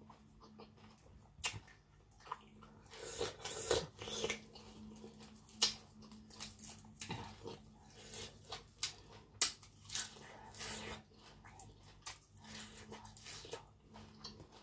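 A person chewing a mouthful of raw beef and spicy papaya salad, with irregular mouth clicks and smacks throughout.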